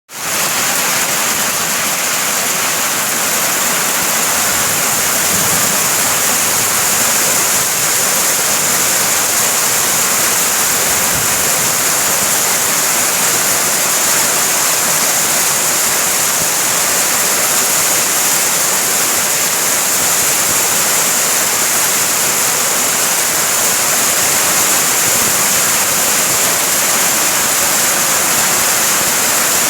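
Heavy rain falling, a loud, steady hiss with no letup.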